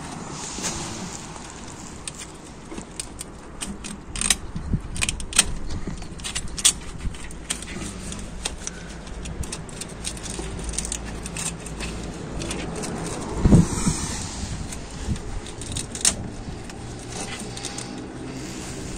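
Gloved hands handling and pulling a bundle of wiring cables behind a bus's front panel: scattered sharp clicks and rattles, mostly between about four and eight seconds in, and a heavier knock about two-thirds of the way through, over a low steady rumble.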